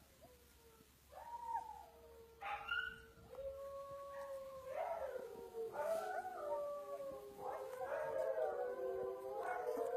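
Husky puppy howling: short, soft calls at first, then from about three seconds in long, wavering howls that grow louder and overlap toward the end.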